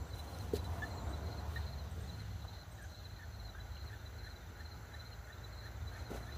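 Insects chirping in a steady rhythm, about three chirps a second, over a low outdoor rumble, with a faint click about half a second in.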